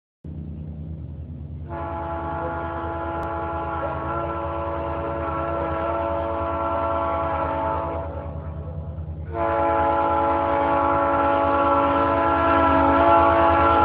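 A diesel locomotive's air horn sounds two long blasts over the low rumble of its engine. The first holds about six seconds; after a short break the second is louder and still sounding at the end, and the overall sound grows louder as the train approaches.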